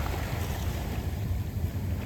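Surf washing over a beach of round pebbles, easing off after a wave has broken, with a steady low rumble beneath.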